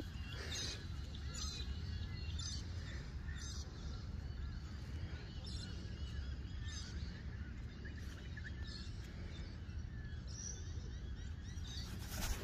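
Wind rumbling on the phone's microphone, with several short bird calls now and then.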